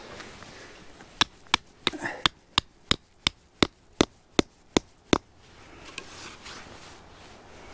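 A hammer driving a tent stake into the ground: about a dozen sharp, evenly paced blows, roughly three a second, that stop about five seconds in.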